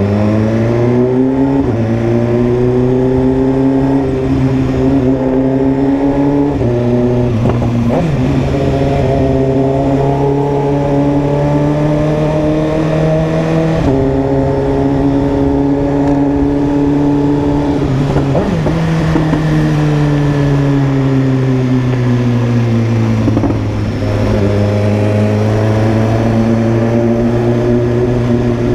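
BMW S1000RR inline-four engine running at steady moderate revs while riding. Its pitch drifts slowly and steps abruptly up or down a few times, with a few brief knocks along the way.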